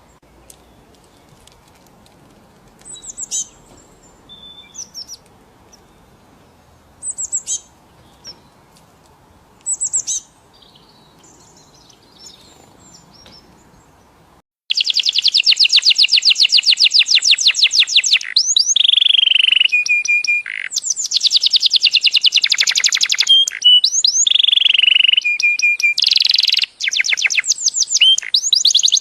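Scattered short bird chirps over a faint outdoor hiss. About halfway through, this switches abruptly to a songbird singing loud and close, in long rapid trills mixed with held whistled notes.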